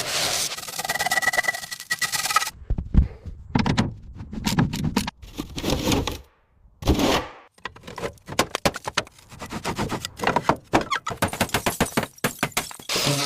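A steady noisy sound for the first couple of seconds, then rapid, irregular runs of sharp clicks and knocks, with a short break about six and a half seconds in.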